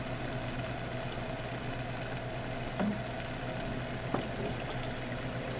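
Steady low hum of the aquarium's running equipment, with a couple of faint light clicks about three and four seconds in.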